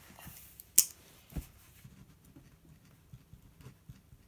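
Paper workbook handled on a desk: a sharp paper rustle about a second in and a soft thump as the book is pressed flat, then faint light scratches and ticks of a pen writing on the page.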